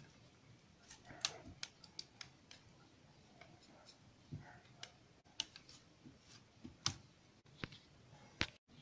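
Faint, irregular small clicks and taps of a TV main circuit board being handled and a replacement part being pressed into place on it.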